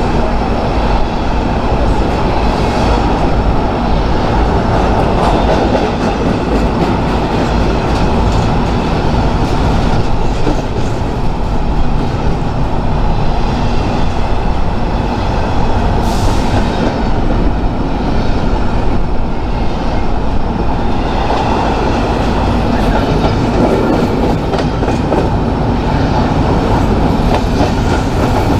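A train rolling steadily past at close range, its wheels clattering over the rail joints in a continuous dense rumble.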